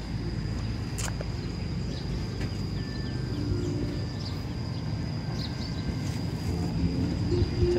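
Outdoor background: a steady high-pitched insect drone over a low rumble, with a single click about a second in.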